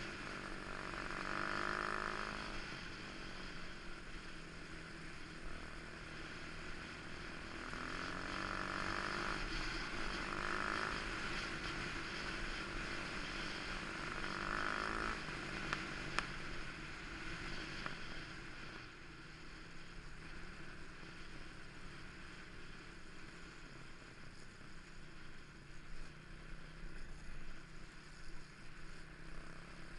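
Motorcycle engine running on the move, its pitch rising and falling several times in the first fifteen seconds as it revs through the gears, with a steady rush of wind noise; in the second half the engine is quieter and mostly the wind is heard.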